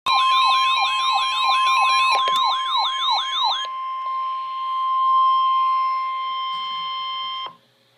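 Emergency alert tone of a NOAA Weather Radio warning: a steady high tone near 1 kHz, the warning alarm tone, held for about seven and a half seconds and cutting off suddenly. For the first three and a half seconds a siren-like falling sweep repeats over it about three times a second.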